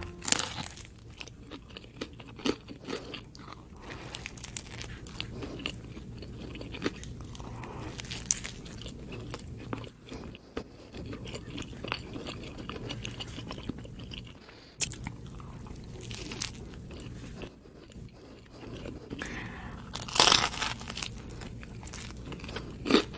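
Close-up sounds of biting into and chewing a giant pizza cone of bread crust filled with cheese and pepperoni: the crust crunching and crackling, with wet chewing between. The loudest bites come just after the start and about twenty seconds in.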